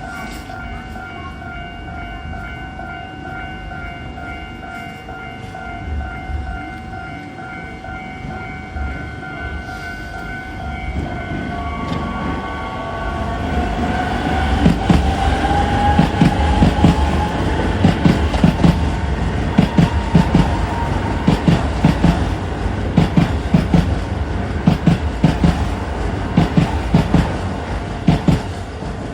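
Level crossing warning bell ringing steadily while a Keisei electric train passes. Its motor whine rises in pitch from about halfway in, and its wheels clatter rhythmically over the rail joints, loudest in the second half.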